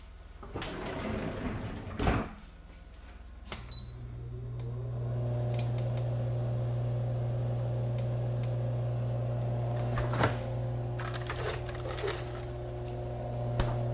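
Countertop electric convection oven being switched on: clicks and a short high beep from its control panel about three and a half seconds in, then its fan motor humming steadily. A few knocks and rustles of handling near the end.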